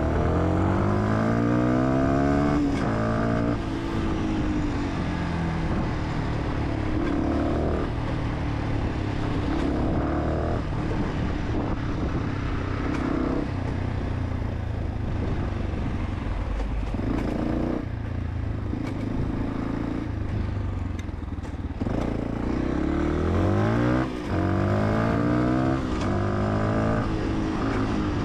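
Fantic 125 supermoto's single-cylinder engine under way, rising in pitch through several gear changes near the start and again near the end, with steadier running in between.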